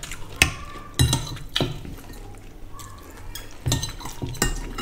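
Metal spoon scooping curry from ceramic dishes, clinking and scraping against the bowl and plate in a series of sharp clinks.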